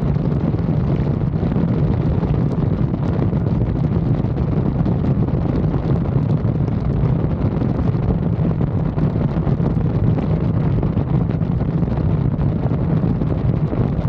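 Wind buffeting the microphone of a rider on a moving Yamaha XMAX 300 scooter, steady, over a constant low hum from the scooter and road.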